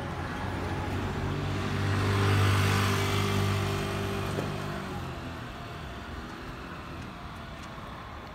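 A car passing close by on the street. Its engine hum and tyre noise swell to a peak about two and a half seconds in, then fade over the next couple of seconds into a steady background of street traffic.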